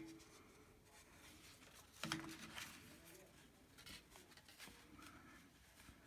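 Near silence: room tone with faint handling sounds as a styrofoam print plate is pressed onto paper, and a brief soft sound about two seconds in.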